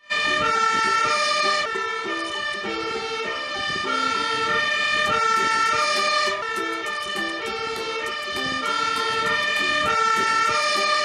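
Fire engine's two-tone siren sounding continuously, its pitch stepping back and forth between two notes, from a Magirus aerial-ladder fire truck pulling away with its blue lights on.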